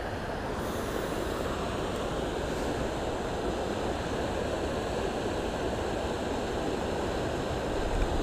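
Swollen, muddy floodwater of a river rushing steadily past in a strong current.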